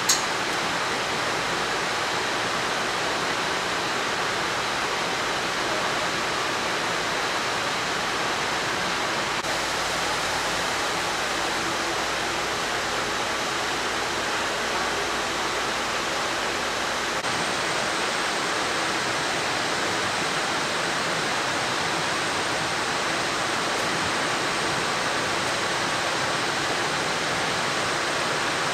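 Steady industrial machinery noise of a factory floor: a dense, even rush with faint steady whines running through it, and a single short knock right at the start.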